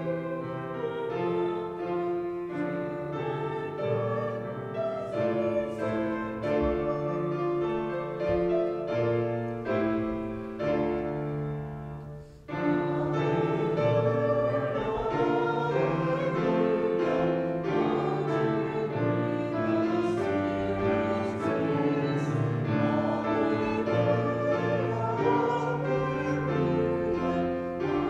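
A hymn sung by a group of voices with keyboard accompaniment. Near the middle, one stanza ends with a brief pause and the next stanza begins.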